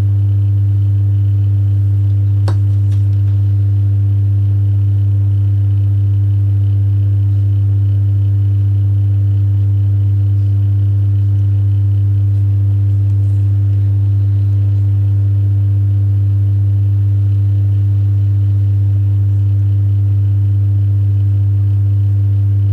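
Loud, steady electrical hum at a low pitch with fainter higher overtones, unchanging throughout, with a single short click about two and a half seconds in.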